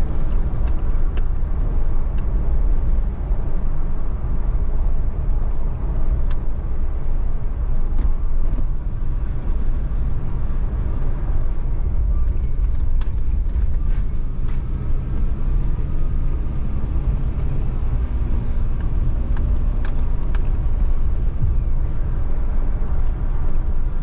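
Car being driven: steady low rumble of engine and road noise, with a few faint ticks scattered through.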